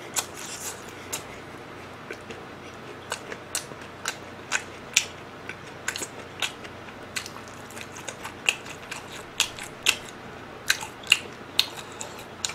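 A person chewing a mouthful of sauced fried chicken close to the microphone: irregular sharp wet clicks and crunches, two or three a second.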